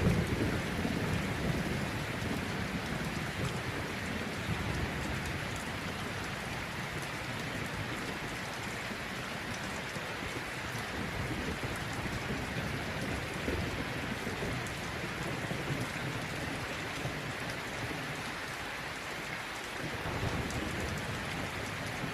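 Heavy rain pouring down steadily, a dense hiss with an uneven low rumble underneath.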